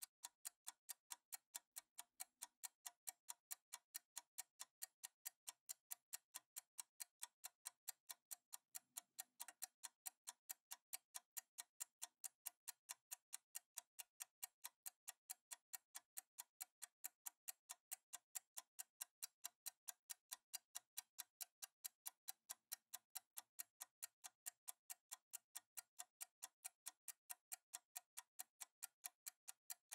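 Faint clock ticking at an even, steady rate, a ticking-timer sound effect.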